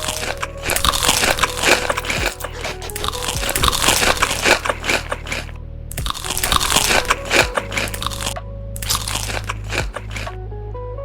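Loud crunching as crunchy food is bitten and chewed close to the microphone, in dense runs with short pauses, over background music.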